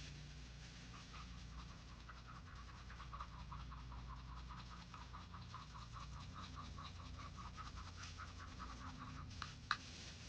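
Rhythmic scratching strokes, about five a second, with a sharp click near the end.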